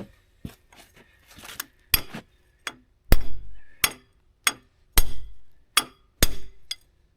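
A hammer striking steel, about a dozen ringing metal-on-metal blows at irregular intervals, roughly two a second, with the loudest about three seconds in. The blows are driving a steel pin out of the rotator yoke on a timber harvester head.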